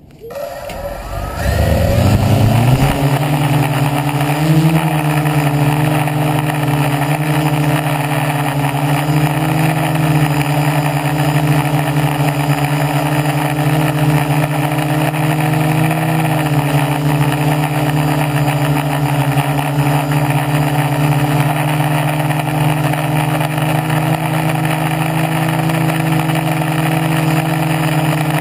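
HobbyKing SK450 quadcopter's four Turnigy 1100kv brushless motors with 10x4.5 props spinning up, rising in pitch over the first two seconds or so, then a steady buzzing drone as the quad lifts off and climbs, with small shifts in pitch as the throttle changes. Heard close up from the frame.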